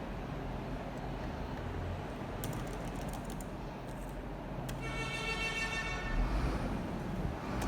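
Steady low traffic rumble in the background, with a few quick clicks about two and a half to three and a half seconds in, then a vehicle horn sounding for about a second and a half.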